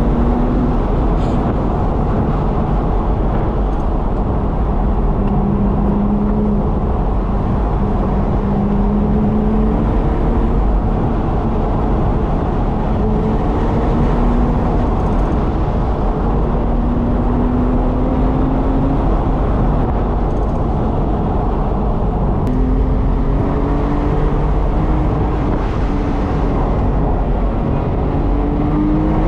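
A car's engine and road noise heard from inside the cabin while driving, with a steady rumble and the engine's hum drifting slowly up and down in pitch several times.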